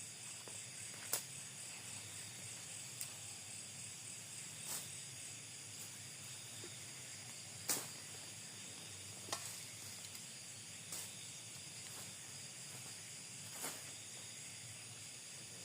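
Faint, steady, high-pitched chorus of night insects, with about seven short sharp clicks or snaps scattered through it; the loudest comes about eight seconds in.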